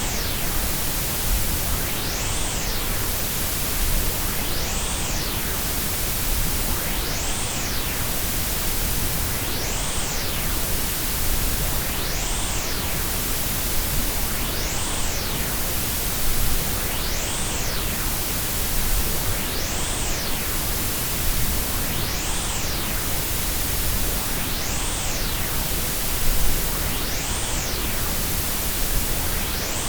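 Steady synthesized hiss of white, pink and Brownian noise mixed together, spread evenly from deep rumble to high hiss. A faint high tone glides up and back down about every two and a half seconds.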